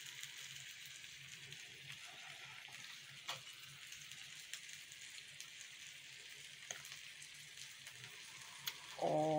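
Faint, steady sizzle of fish frying in a pan, with a few light clinks of a fork on a glass plate and a short voiced hum near the end.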